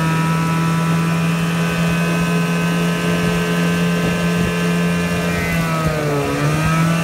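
1994 Evinrude 4 hp Deluxe two-cylinder two-stroke outboard running steadily under way. Its revs dip briefly about six seconds in, then pick back up.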